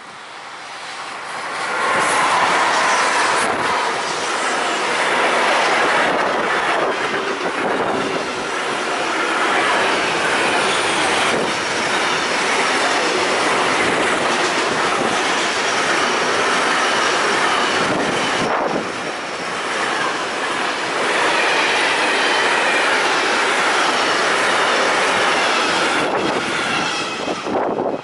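Intermodal freight train hauled by an E.405 and an E.412 electric locomotive passing close by, its long string of container and tank wagons rolling past on steel wheels with a high ringing whine. The sound swells over the first two seconds as it arrives and drops away near the end as the last wagon goes by.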